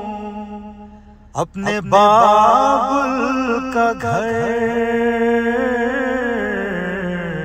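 A voice singing slow, chant-like melodic phrases with long held, wavering notes. One phrase fades out about a second in, and a new one begins shortly after.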